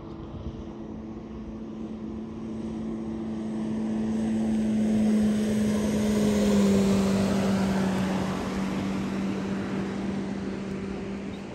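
Motorboat passing by on the water: a steady engine hum that grows louder, peaks about halfway through with a slight drop in pitch as it goes past, then fades.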